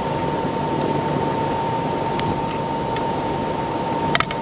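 A steady whirring background with a constant high whine, and a quick rattle of small plastic clicks near the end as the backup camera is worked free of its plastic brake-light housing.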